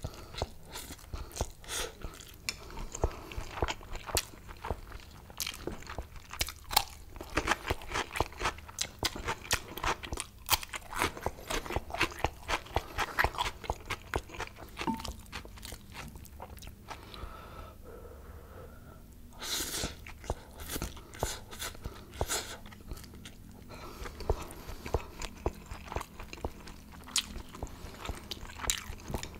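Close-miked chewing of a mouthful of spicy Korean mixed noodles: a steady run of wet, crunchy mouth clicks and smacks. It goes quieter for a few seconds a little past the middle, then picks up again.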